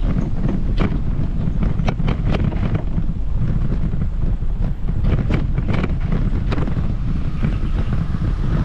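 Wind buffeting the microphone with a steady low rumble, and irregular light clicks scattered through it.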